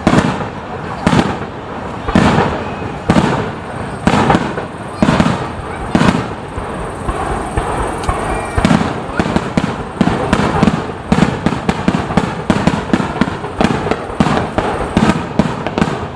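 Aerial firework shells bursting overhead, booms with low rumbling tails about once a second, giving way about nine seconds in to a faster volley of many bangs in quick succession.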